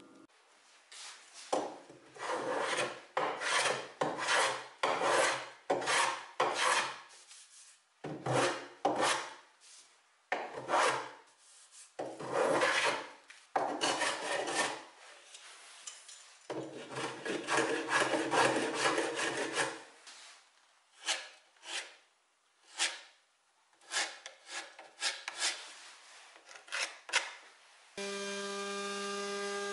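Small hand plane shaving along an oak edge: a long series of short scraping strokes, with a longer run of steady planing midway. Near the end a router motor starts up with a steady whine.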